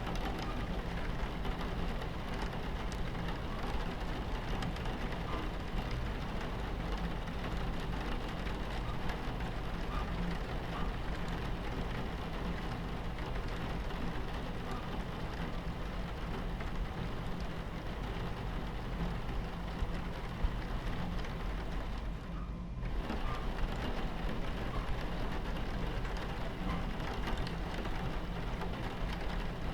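Steady rain against a train window over the low, continuous rumble of a moving train, with the rain briefly dropping away about two-thirds of the way through.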